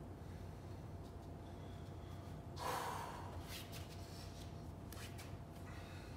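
A man exhales heavily once, about two and a half seconds in, catching his breath after a workout interval, over a low steady room hum. Faint rustles and light taps follow as he gets up off an exercise mat.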